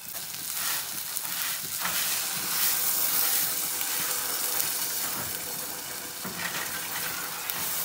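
Water poured into a saucepan of pulao rice frying with spices and nuts, sizzling and hissing as it hits the hot pan. The sizzle swells about half a second in, is loudest a couple of seconds later, then eases slightly.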